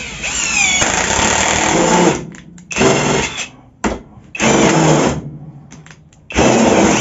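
Power drill driving a screw into wood held in a bench vise, run in four trigger bursts. The first opens with a rising whine and lasts about two seconds, and the three after it are shorter. The screw strips under the force ("se barrió").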